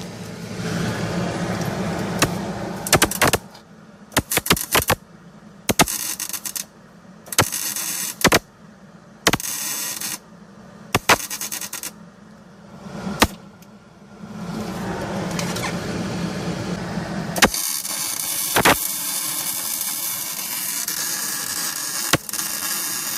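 Welder crackling as the spider gears of a BMW E36 rear differential are welded solid. It comes in a string of short bursts of about a second each in the middle, with longer unbroken runs at the start and near the end.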